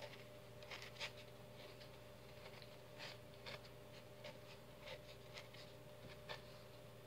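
Faint scratching of a pen drawing on a cup, in short irregular strokes, over a steady low hum.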